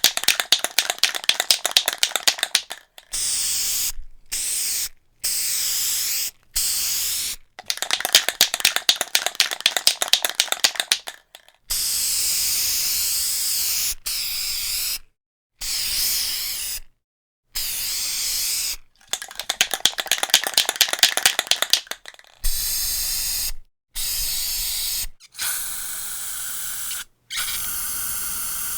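Spray paint can shaken hard, its mixing ball rattling rapidly, then sprayed in short hissing bursts of about a second each. Shaking and spraying alternate three times, the last spray running longer.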